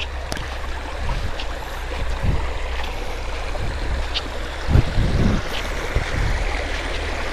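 Small rocky mountain stream running over stones, a steady rush of flowing water, with a low rumble underneath and a few low thumps about five seconds in.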